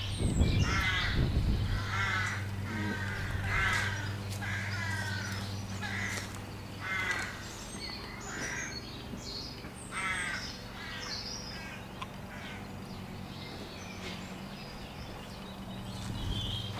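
A crow cawing over and over, harsh calls about once a second that thin out after about ten seconds, over a steady low hum. A low rumble in the first couple of seconds.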